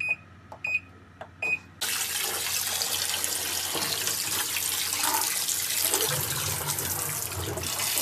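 Little Swan washing machine control panel beeping three times as its buttons are pressed. About two seconds in, a hose starts spraying water steadily into the machine's plastic outer tub, rinsing dirt out of it.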